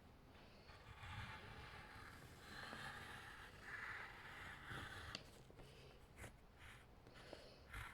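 Near silence: faint room noise with a soft hiss.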